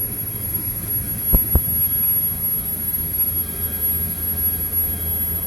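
Fishing boat's engine running steadily under way, a constant low drone, with two short knocks about a second and a half in.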